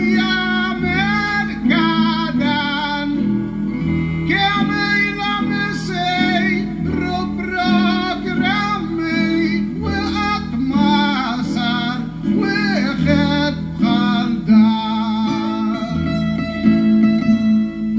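Maltese għana folk singing: a man sings long, wavering vocal lines over acoustic guitars. Near the end the voice stops and the guitars play on alone.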